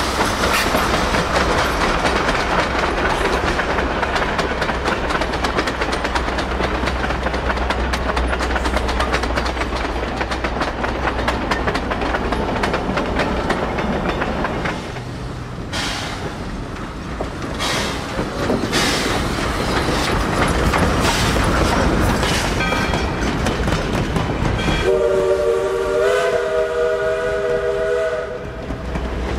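A steam-hauled passenger train rolling past: wheels clicking steadily over rail joints, with a low steady drone under the first half and a few sharper knocks midway. Near the end the locomotive sounds a multi-note chime whistle for about four seconds.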